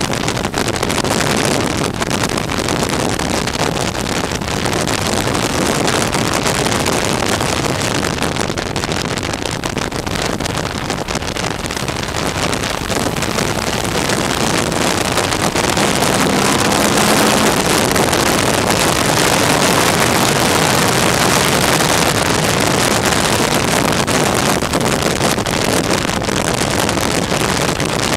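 Steady rush of wind over a motorcycle-mounted microphone, with the motorcycle's engine running underneath at cruising speed, a little louder in the second half.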